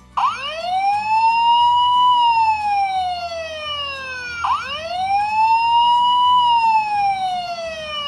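Tonka toy fire truck's electronic siren, set off by a press of its cab button. It plays a wail that rises quickly and falls slowly, twice, about four seconds per sweep.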